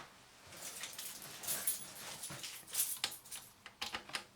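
Small screwdriver scraping and clicking against tiny screws and the metal and plastic of a satellite receiver's chassis, in short irregular bursts with high-pitched scratchy squeaks.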